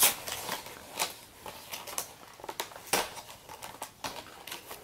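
Cardboard collector's box being pried open by hand: scattered crackles and sharp snaps of the card, the loudest right at the start, about a second in and about three seconds in.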